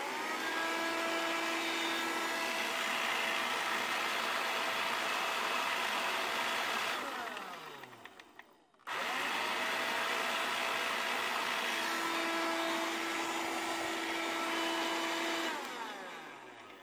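Arzum Eterno handheld cordless vacuum cleaner, now running on its replacement lithium-ion battery, switched on and run twice. Its motor runs steadily for about seven seconds and winds down with a falling whine. It starts again about nine seconds in, runs steadily and winds down again near the end.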